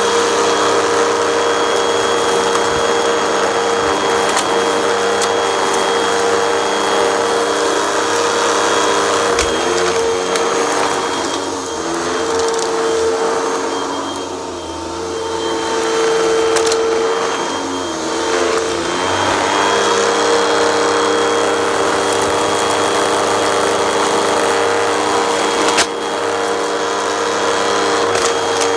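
Vacuum cleaner with a brushroll running on carpet with a steady hum, pushed back and forth through a pile of dust and debris. The sound drops twice in the middle as the head moves away, and a sharp click comes near the end.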